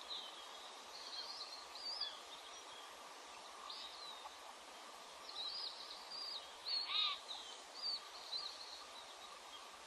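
Bald eagle chicks peeping with short, high-pitched chirps in quick series while the adult feeds them in the nest, with one louder, fuller call about seven seconds in.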